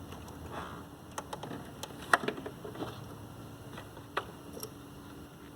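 Scattered small plastic clicks and taps, about eight of them, the sharpest a little after two seconds in, as a stuck relay is worked at in its socket in the BMW E90's engine-bay electronics box.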